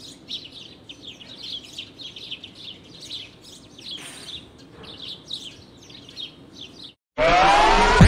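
Songbirds chirping in quick, overlapping high notes. Just before the end the birdsong cuts out, and loud electronic music with sweeping, rising tones starts.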